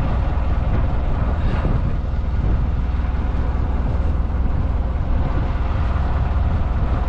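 Engine running steadily with a deep, even low rumble.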